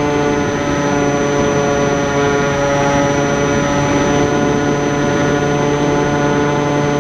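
Small R/C flying wing's motor and propeller running at steady throttle, heard from a camera on board the plane: an even-pitched drone with a thin high whine above it.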